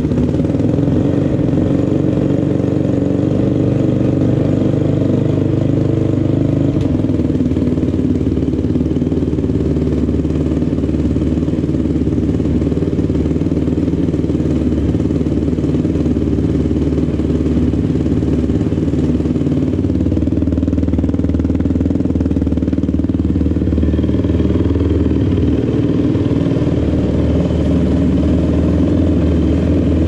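Freshly rebuilt Honda TRX450 single-cylinder four-stroke ATV engine, with a ported OCP head and stage three cam, idling steadily while still cold just after start-up.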